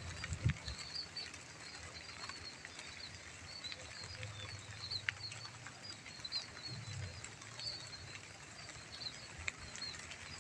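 Light drizzle on a rice field: a soft, even hiss of rain with scattered drop clicks, while small birds chirp in short high repeated calls throughout. There is a low thump just after the start and a low rumble around the middle.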